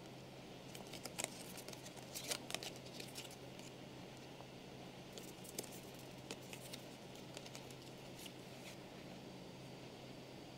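Faint clicks and scrapes of Ultra Access Cards, the toy's stiff trading cards, sliding and tapping against each other as they are shuffled between the fingers. The clicks come in two spells, one early and one in the second half.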